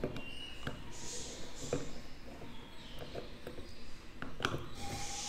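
Screwdriver tip working against the dial plate of a Yamaha YB125Z speedometer: scattered small clicks and scrapes, with a brief squeak at the very start.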